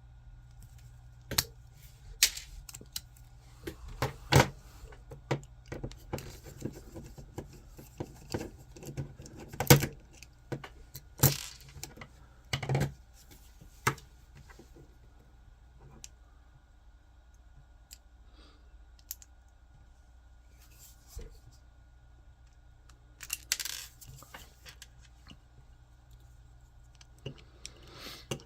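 Small hard parts and hand tools being handled at a workbench: irregular sharp clicks, taps and rattles, many in the first half, then a quieter stretch and a short cluster about two-thirds of the way through, over a faint steady hum.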